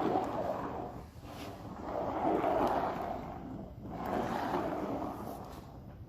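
A homemade sound effect imitating a jet taking off: a hissing noise that swells and fades in long waves, three times, with a fourth swell starting near the end.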